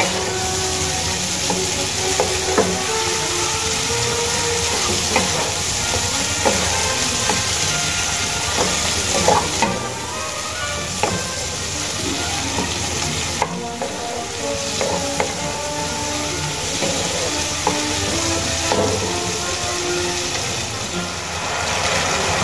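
Spiced tomato and potato masala sizzling in oil in a nonstick kadai, stirred and scraped with a spatula: a steady frying hiss with scattered scraping clicks. The masala is being fried down (kosha) until the oil separates from it.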